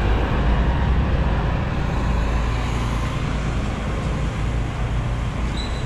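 Passenger van's engine idling with a steady, low rumble.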